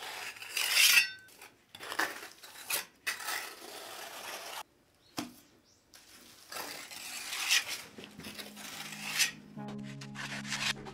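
A plastering trowel scraping and spreading cement plaster over an old tiled wall in repeated strokes, with short pauses between them.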